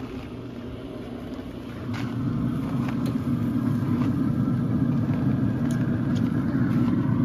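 Pellet smoker running with a steady low rumble that grows louder about two seconds in, with a few light clicks from handling.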